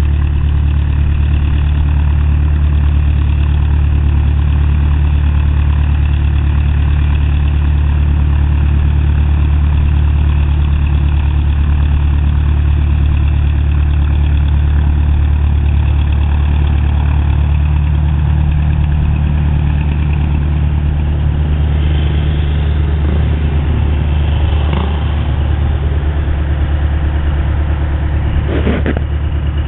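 Cessna 172 Skyhawk's piston engine and propeller idling steadily on the ramp after startup, a constant low drone.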